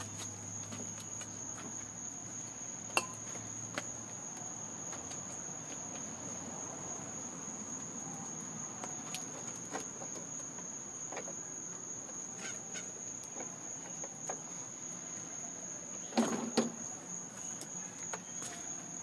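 Steady chorus of crickets, one continuous high trill, with a few sharp clicks and a short clatter of knocks about sixteen seconds in.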